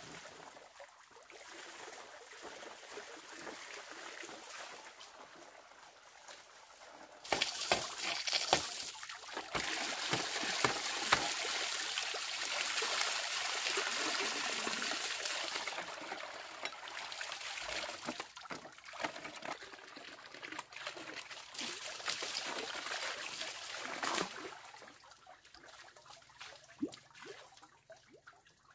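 Water running from a garden hose into a plastic basin and over bamboo slats: a loud steady rush that starts suddenly about a quarter of the way in and dies away a few seconds before the end, with scattered knocks of dishes and a plastic scoop. Quieter dribbling and hand-splashing in the basin before and after.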